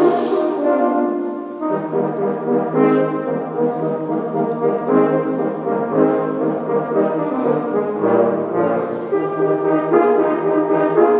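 Brass music, played without a break.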